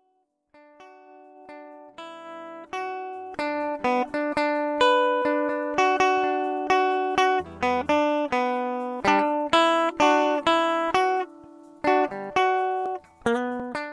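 Background music: a plucked guitar melody, soft at first and growing fuller about two seconds in.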